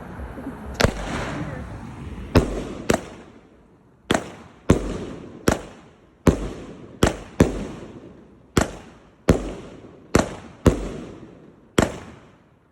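A 40-shot consumer fireworks cake firing. There are about sixteen sharp bangs, spaced unevenly from roughly half a second to a second apart, and each one fades away in a trailing tail.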